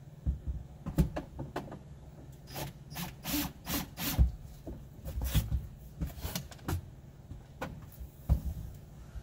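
Irregular knocks, clicks and rubbing from hand work at the floor of a truck cab, with a few sharper thumps.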